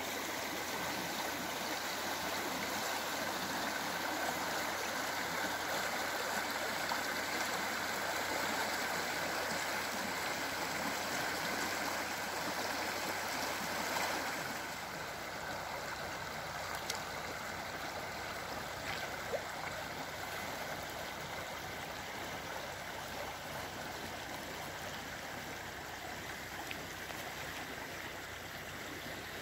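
Shallow river water rushing and gurgling over stones in a riffle, a steady flowing sound that gets a little quieter about halfway through.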